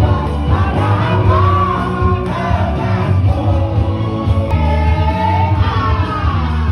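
Live band playing a song through a PA system, with a singer's voice over a heavy bass line.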